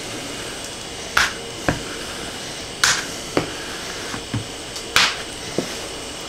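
Plastic squeegee swept across a self-adhesive PEI sheet on a steel flex plate, pressing it down flat: three short scraping swishes about two seconds apart, with light knocks between them.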